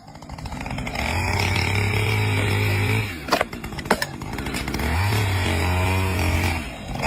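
A motor, like a power tool's, running in two bursts of about two seconds each, with two sharp clicks between them.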